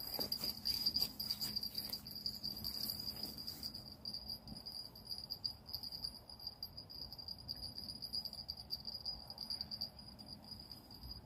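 An insect trilling steadily in one continuous high-pitched note over a faint even hiss.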